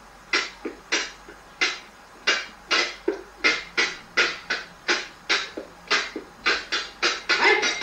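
A quick, uneven run of sharp knocks or clacks, about two to three a second, each ringing briefly.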